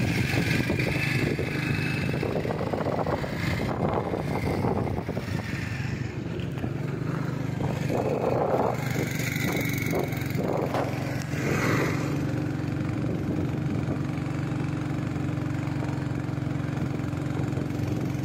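Motorcycle engine running at a steady pace while riding, a low even hum mixed with wind and road noise, with a few knocks and rattles in the first half.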